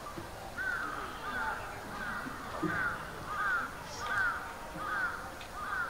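A bird calling in a steady series of short, alike notes, about one every 0.7 seconds.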